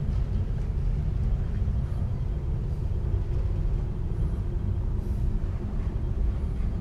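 Steady low rumble with no clear rhythm or pitch.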